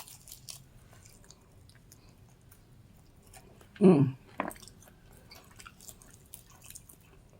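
Soft chewing of fried chicken wings, with faint wet mouth clicks and crunches throughout. There is a brief vocal sound from the eater about four seconds in.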